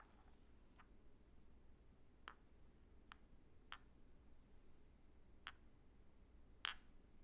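Small glass clinks: five light, sharp taps, each with a brief high ring, the loudest near the end. A high ringing tone from an earlier clink dies out just under a second in.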